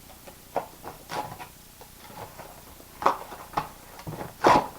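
A small cardboard box being torn apart by hand: a string of short, uneven rips and crackles, the loudest about three seconds in and near the end.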